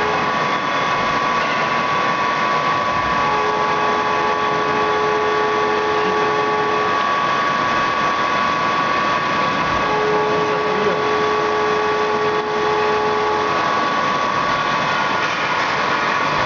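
Quaser MV154PL CNC machining centre milling aluminium with emulsion coolant: a steady machine whine over a dense hiss. A second, lower tone comes in twice, each time for about three and a half seconds.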